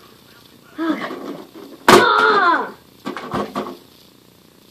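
A sharp smack of plastic Lego pieces being smashed just before two seconds in, with a couple of lighter knocks about a second later, amid a child's wordless exclamations.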